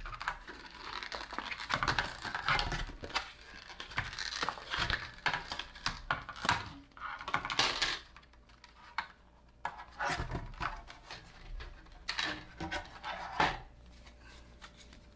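Pokémon trading card deck box being unpacked by hand: irregular rustling and crinkling of packaging with light plastic clicks and clatter, in clusters that pause briefly about eight seconds in.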